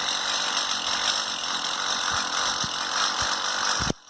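Gasoline-powered ice auger running steadily as it bores a hole through lake ice, cutting off abruptly near the end.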